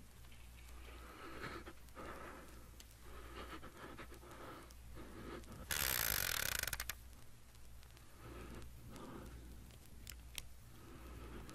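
Sound effects from a comedy record, played back from vinyl: faint nervous breathing, a loud rattling whir of about a second a little past halfway, like a revolver's cylinder being spun, and two sharp clicks near the end, like the hammer being cocked, under a steady low hum.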